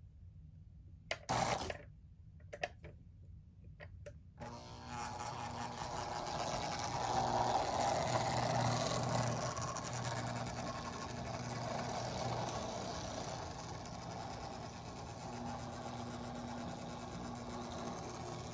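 Lionel O-27 Santa Fe Warbonnet toy train running: a few sharp clicks, then about four seconds in its electric motor starts up and the train whirrs and rumbles along the tubular metal track. The sound grows louder for a few seconds, then holds steady.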